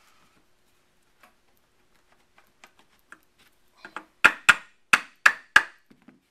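Plastic-headed mallet tapping the old Martini-Henry rifle at the joint of its receiver and wooden buttstock, knocking the tight stock loose: a few light taps, then five sharp knocks in quick succession near the end, after some faint clicks of handled tools and parts.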